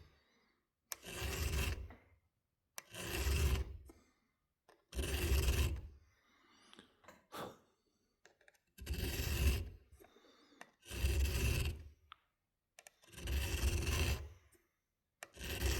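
Hand file on a pair of metal pocket-knife tool pieces held in a vise, in slow, even strokes about a second long and roughly two seconds apart. The strokes pause for a few seconds near the middle, with a few light knocks in the gap. This is the final filing that brings a Phillips screwdriver blade to the same shape as the hook tool riveted to it.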